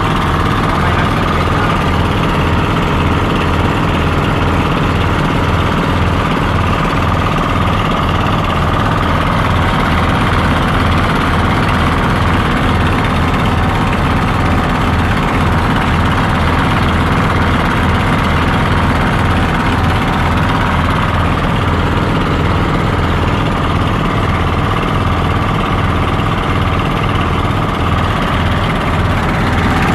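A small engine running steadily at an even speed, with a regular low pulsing.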